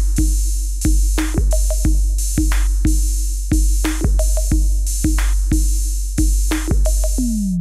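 Electronic background music with a steady drum-machine beat, about two hits a second, over heavy bass. Near the end a bass note slides steadily downward.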